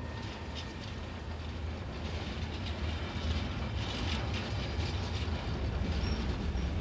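Deutsche Reichsbahn class 119 diesel locomotive rolling past, with a steady low engine rumble and wheels clicking over the rails, growing a little louder about halfway through.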